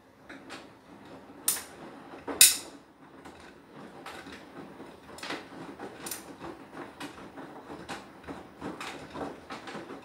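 Beko WTK104121W washing machine's drum turning the load during its Anti Allergy wash cycle: irregular knocks and rustles, with two louder clunks about one and a half and two and a half seconds in.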